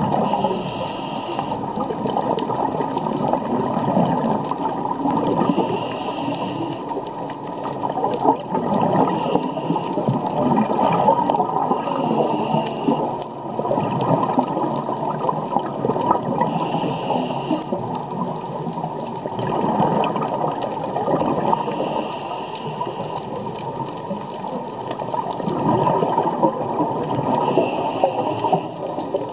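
Muffled underwater sound picked up by a diver's camera: a steady churning water rumble, with a scuba regulator breath hissing about every four to five seconds.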